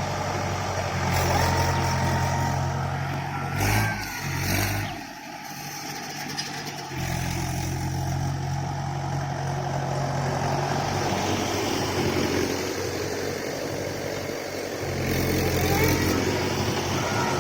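Diesel tractor engine running with a steady low drone, which drops away for a few seconds about four to seven seconds in and then comes back.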